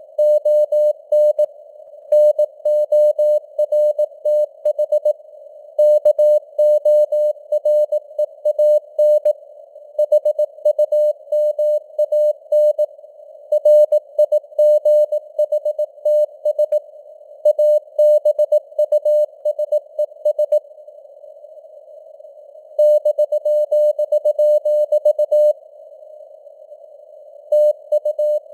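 Morse code (CW) news text keyed at 18 words per minute as a single mid-pitched tone in dots and dashes, over a narrow band of simulated radio hiss. Twice in the second half the keying stops for about two seconds, leaving only the hiss.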